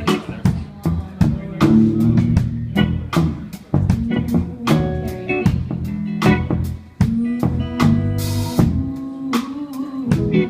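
Live band playing: a drum kit keeping a steady beat under guitar and bass.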